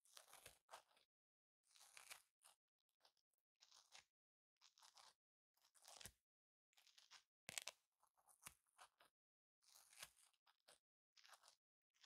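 Velcro (hook-and-loop fastener) worked close to the microphone in short, quiet, scratchy strokes, about one every second, with silence between them.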